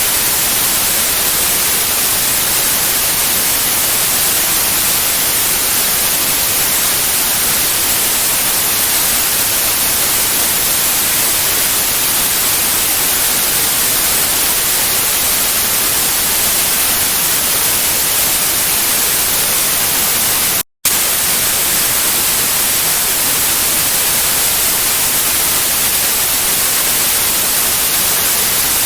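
Steady white noise: an even, loud hiss with no tones or rhythm, brightest in the highs. It cuts out completely for a split second about three quarters of the way through, then resumes unchanged.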